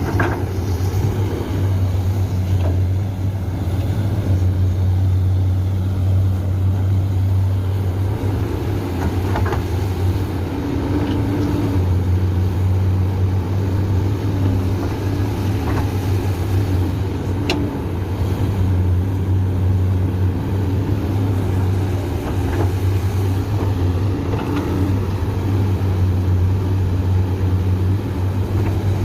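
Komatsu PC200 hydraulic excavator's diesel engine running steadily under working load, its low hum easing and swelling a little as the machine works. A few sharp knocks sound, the clearest about two-thirds of the way through.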